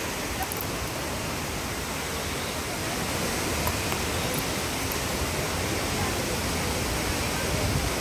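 Steady rushing roar of a waterfall's falling water.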